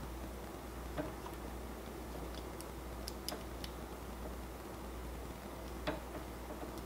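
Faint clicks and taps of small metal 3D-printer hotend parts being handled: one about a second in, a few around three seconds in and one near the end, over a steady low hum.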